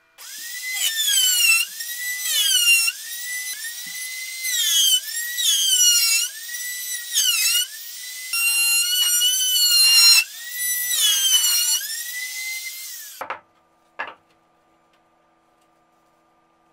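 Compact trim router whining at high speed as it cuts along the edge of a curved plywood piece, its pitch dipping and recovering over and over under load. It cuts off about 13 seconds in, followed by two short knocks.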